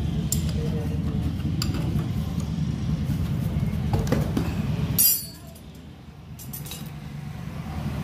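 Steel wrench and flywheel puller on a Honda TMX's contact-point magneto clinking as the puller bolt is turned, then one sharp metallic crack about five seconds in, the loudest sound, as the flywheel breaks loose from its taper.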